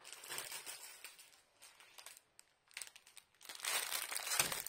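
Plastic packaging crinkling as shrink-wrapped bundles of small zip bags of diamond-painting drills are picked up and handled, in irregular bursts, loudest near the end.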